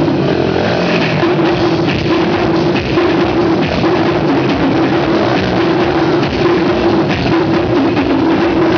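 Loud rock music with a drum kit and guitar, steady throughout.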